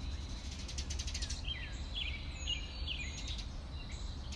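Birds chirping in short, sliding calls, with a quick run of clicks about a second in, over a low steady rumble.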